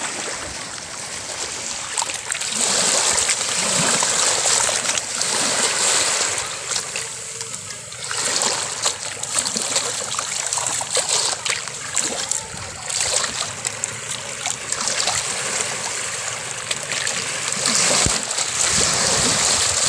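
Shallow seawater lapping and trickling over a rocky, weedy bottom right at the microphone, a steady wash broken by many small splashes; it grows louder about two seconds in.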